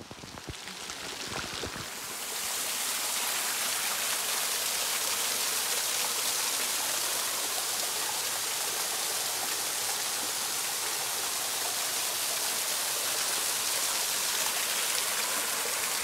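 Water pouring and dripping down a moss-covered travertine waterfall: a few separate drips and splashes in the first two seconds, building into a steady rushing hiss of falling water.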